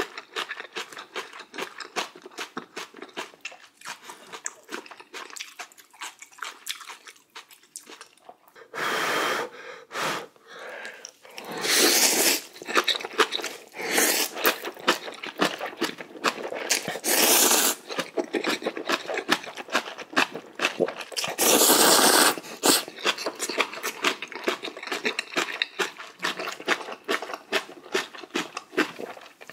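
A person eating spicy instant ramen noodles: quick wet chewing sounds throughout, and about five long, loud slurps of noodles starting about a third of the way in.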